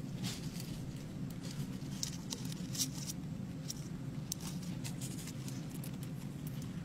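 Light, scattered clicks and scratches, about a dozen irregular ticks, over a steady low hum.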